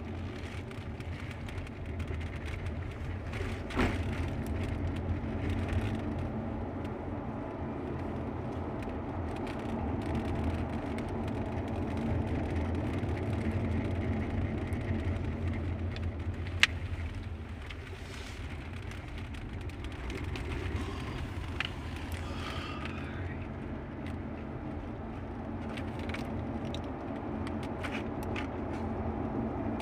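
Car driving, heard from inside the cabin: a steady low hum of engine and tyres on the road, with one sharp click a little past the middle.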